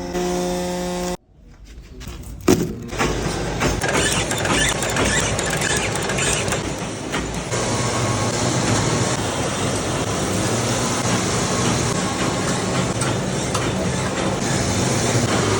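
Factory machinery noise: a steady hum that cuts out about a second in, then a sharp knock and a dense mechanical clatter.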